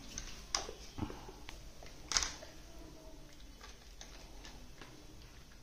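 A few light clicks and knocks of plastic toys being handled: a toy crane bucket and loose plastic pieces in a toy dump truck. The loudest knock comes about two seconds in.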